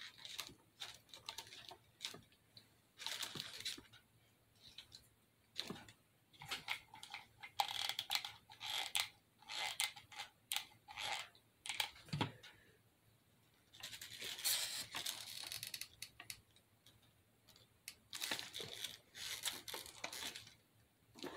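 Hands handling and hot-gluing small craft pieces: irregular rustling, crinkling and scraping with scattered clicks, and one soft knock about twelve seconds in.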